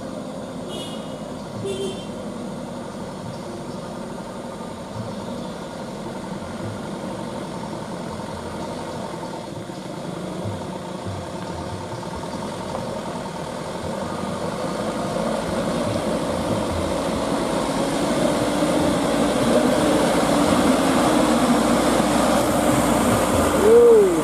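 Engines of light trucks loaded with oil palm fruit bunches, running under load as they drive up a dirt road; the sound grows louder as one truck nears and passes close by. A short whistle-like tone just before the end is the loudest moment.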